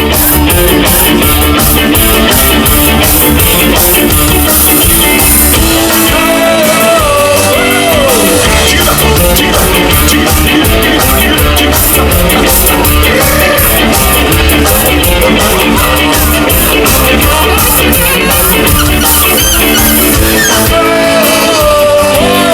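Ska band playing live, loud, with a steady beat.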